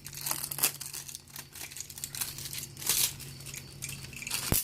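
Packaging crinkling and tearing as an eyeshadow palette is unwrapped, in irregular bursts, with a sharp click near the end.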